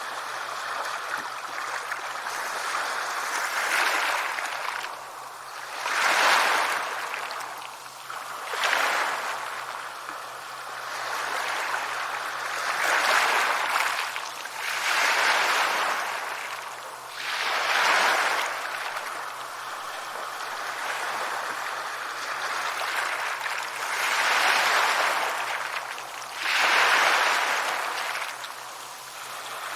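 Sea waves breaking and washing up a shore, a loud surge every two to three seconds over a continuous wash of surf.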